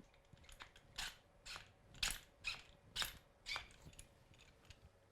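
Hand file stroking across the leading edge of a steel ice screw's tooth in a file guide: about six short, faint rasping strokes, roughly two a second, that stop after three and a half seconds or so.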